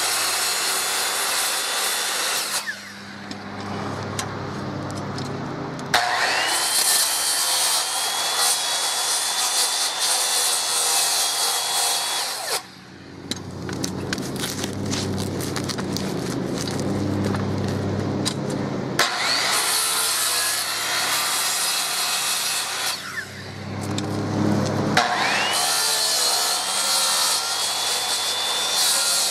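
DeWalt corded circular saw cutting through OSB roof decking in four separate cuts. Three of the cuts open with a rising whine as the motor spins up, then the blade bites into the wood. Between cuts the saw winds down to a lower hum.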